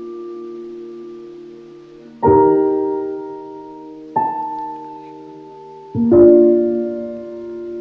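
Slow background piano music: soft chords struck about every two seconds, each left to ring and fade.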